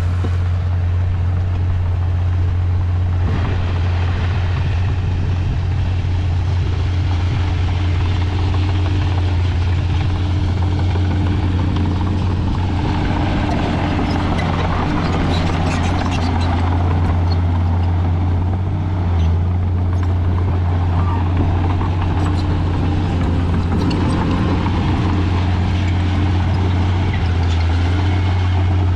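Heavy diesel earthmoving machinery running steadily with a deep, constant engine hum; for a few seconds about halfway through the sound grows louder and noisier.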